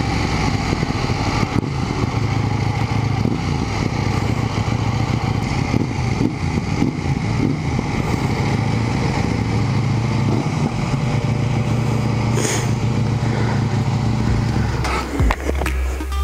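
2018 KTM 790 Duke's parallel-twin engine running at steady, even revs, heard from the bike. Near the end electronic music comes in.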